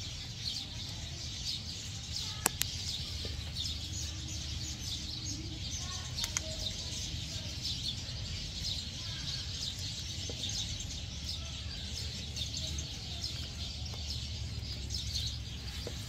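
Birds chirping in the background over a low steady rumble, with two faint sharp clicks about two and a half and six seconds in.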